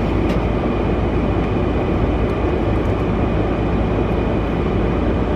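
Steady rumble and hiss of a car's interior, with a few faint ticks.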